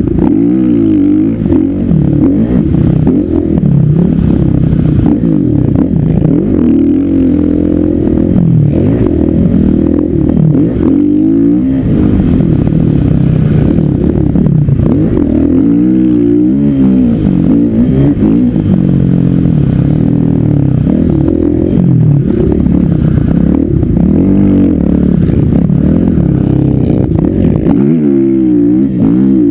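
Dirt bike engine revving hard under load while riding through soft sand, its pitch rising and falling every second or two with throttle and gear changes.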